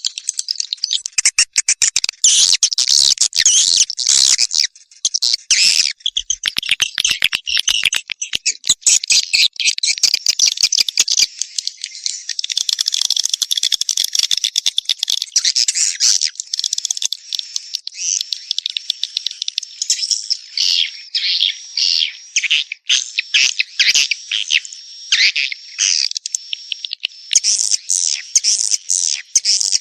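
Swiftlet calls, the sound used to attract edible-nest swiftlets to swiftlet houses: dense runs of rapid, high clicking chirps and trills with short gaps between them.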